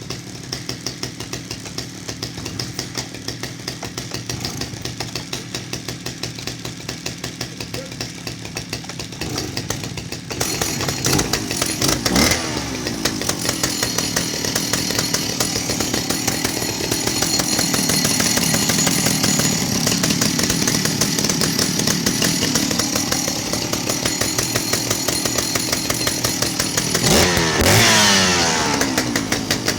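Vintage Stihl two-stroke chainsaw running with its bar and chain removed: a steady idle for about ten seconds, then louder and faster, with quick revs around twelve seconds and again near the end.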